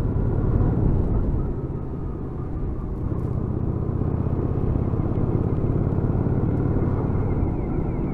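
Kawasaki VN800 Drifter's V-twin engine running under way, a steady low rumble that eases slightly about two seconds in and then picks up again.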